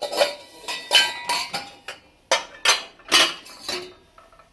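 Metal dishes and utensils clinking and knocking against each other as they are handled. There are about ten separate knocks, some ringing briefly, and they die away near the end.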